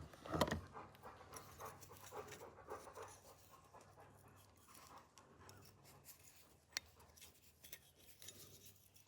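Faint scraping and rustling of hands and a tool working at the parts inside a small shotgun's action, with one sharp metallic click near seven seconds in.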